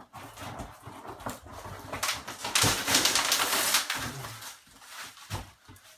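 Cardboard shipping box being opened and a skateboard deck in plastic wrapping pulled out: rustling and scraping of cardboard and crinkling plastic, with the loudest crinkling about two and a half seconds in, lasting around a second.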